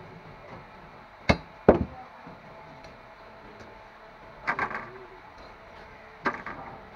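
Sharp chopping knocks and thuds of a big grass carp being cut on a boti blade and its pieces slapped down: two close together about a second in, a quick cluster past the middle, and another near the end.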